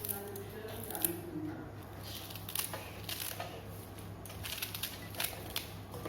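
Scattered light clicks, taps and rustles of kitchen items being handled, over a steady low hum.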